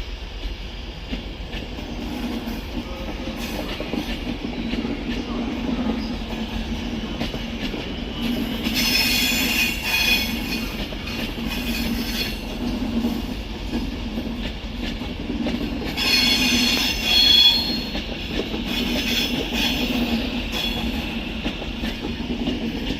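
Avanti West Coast Class 390 Pendolino electric train pulling slowly out of the station, with a steady low rumble and hum. Its wheels squeal on the curving track in two high-pitched spells, about nine seconds in and again around sixteen seconds in.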